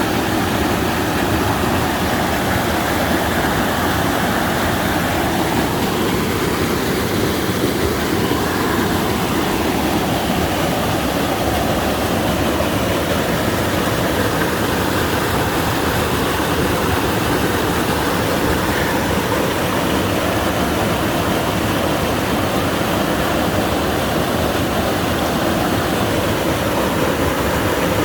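Mountain valley stream rushing, a loud, steady noise of flowing water.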